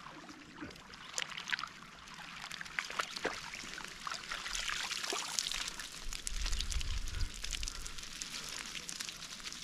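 Water splashing, pouring and dripping off a wire-mesh yabby net full of yabbies as it is pulled through shallow dam water and lifted out, with many small clicks and drips. A brief low rumble comes about six seconds in.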